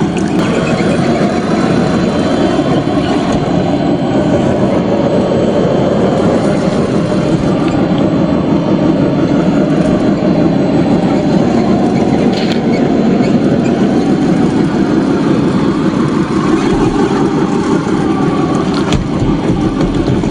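Radio-controlled toy dump truck running: a steady, continuous mechanical drone from its motor and drivetrain, with a couple of faint ticks.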